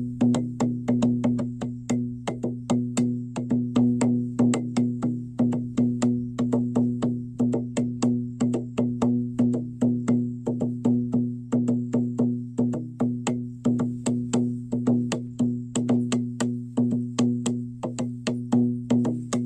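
Background music: a steady low drone under a quick, even wood-block-like percussion beat, about four strokes a second.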